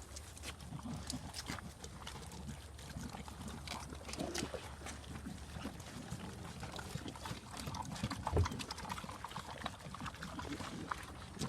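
Several dogs eating from their bowls: a steady run of small, wet chewing and smacking sounds.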